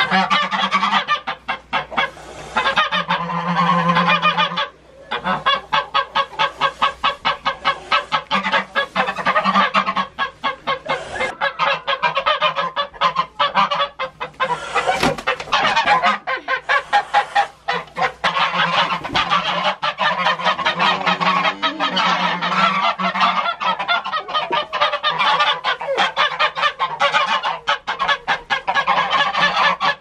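Several white domestic geese honking loudly and almost without pause, in fast repeated calls of several a second.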